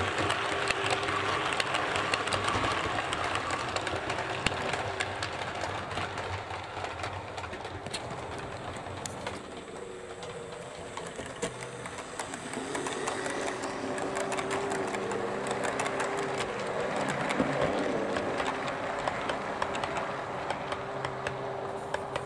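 OO gauge Oxford Rail GER N7 tank locomotive running on model track with its coaches: a steady electric motor whir with many small clicks of wheels over rail joints. It fades somewhat about ten seconds in and grows louder again from about thirteen seconds as the train comes round past the camera.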